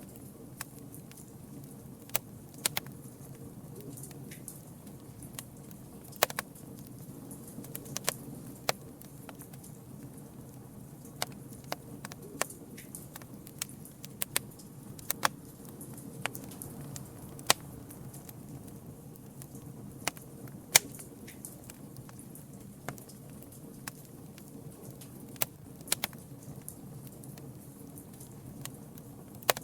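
Campfire burning, with irregular sharp crackles and pops from the burning wood over a steady low rush of flames.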